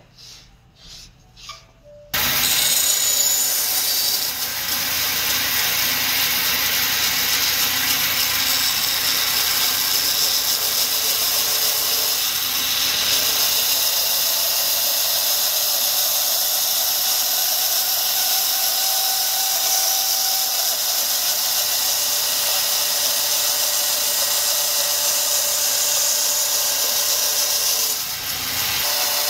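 Band saw cutting through a block of wood: a loud, steady whir and rasp that comes in abruptly about two seconds in, after a few soft knocks of wood being handled, and dips briefly near the end.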